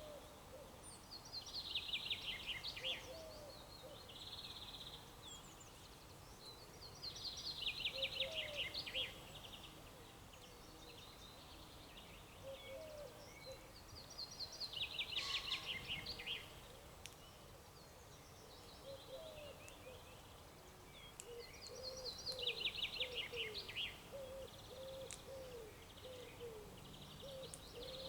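Birds singing in spring. One songbird repeats a short, fast trilled song phrase about every six to seven seconds, over steady background noise. Fainter, lower chirps from other birds come and go, growing busier near the end.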